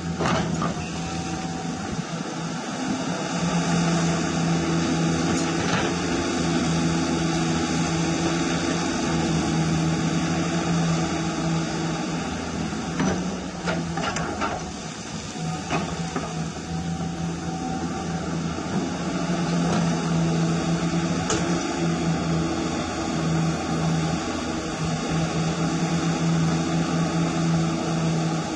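Hydraulic pump of a radio-controlled CAT 336 model excavator humming steadily as the boom swings and the bucket digs, the hum dropping out briefly now and then. About halfway through comes a cluster of sharp clicks and scrapes as the bucket bites into the soil.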